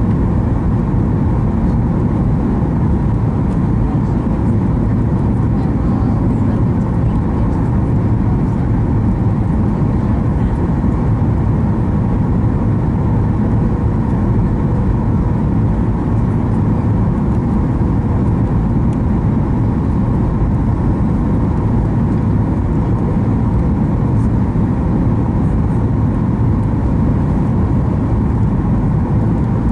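Cabin noise inside a Boeing 737 MAX 8 descending on approach with flaps extended: its CFM LEAP-1B engines and the airflow make a steady low rumble with a faint constant hum over it.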